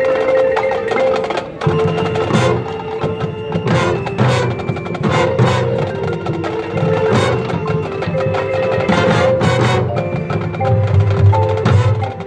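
High school marching band playing: held wind chords under repeated percussion strikes and mallet percussion.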